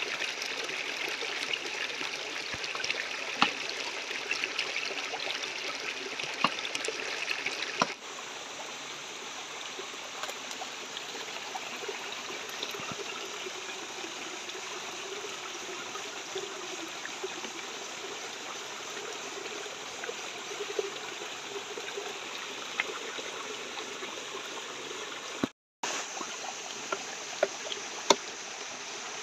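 Small stream running over rocks: a steady rush of water with a few faint clicks and knocks on top. The sound changes abruptly about eight seconds in, and again near the end.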